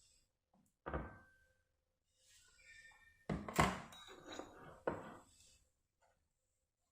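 Kitchenware being handled and set down: a knock with a brief ring about a second in, then a cluster of heavier thunks and clatter from about three to five seconds in.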